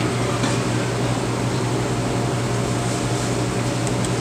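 Steady low hum of running machinery, even throughout with no breaks.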